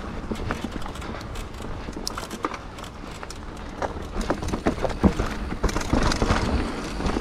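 A Scott Genius 950 full-suspension mountain bike riding over rough singletrack: tyre noise on dirt with many sharp rattles and knocks from the bike over bumps, above a steady low rumble. The knocks come thicker and louder about four seconds in.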